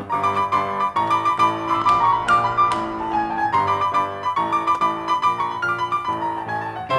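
Grand piano played solo: a lively instrumental passage of quick notes, with fast runs a couple of seconds in.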